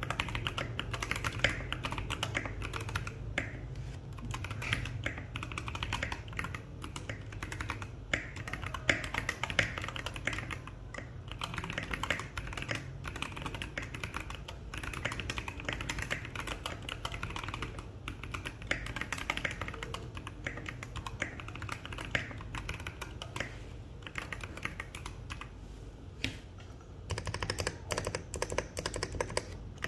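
Continuous typing on a Fanoe mechanical keyboard fitted with Kailh Polia tactile switches: a dense, unbroken stream of keystroke clacks. The clacks turn brighter and sharper near the end.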